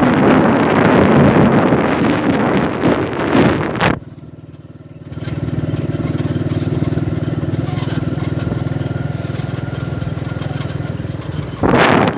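Wind buffeting the microphone for about four seconds. Then, after a brief drop, an engine runs with a steady, even hum for about six seconds, and the wind buffeting returns near the end.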